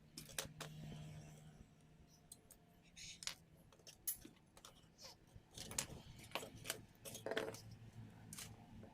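Small parts for a homemade mini drill press being handled and fitted: scattered light clicks and knocks, with a faint low hum underneath.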